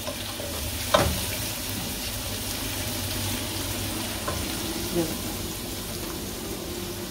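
Chopped onion, garlic and green chillies frying in oil in an aluminium pot with a steady sizzle, stirred with a wooden spoon, with one sharp knock about a second in.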